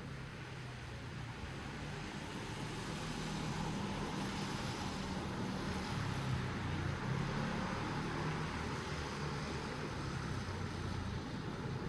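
Light rain falling, a steady even hiss with a low rumble underneath, growing a little louder over the first few seconds.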